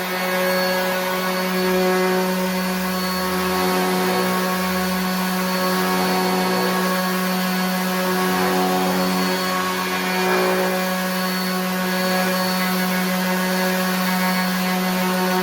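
RIDGID 18-volt cordless 5-inch random orbit sander running steadily while sanding a rough piece of wood, a constant motor hum with a higher whine above it.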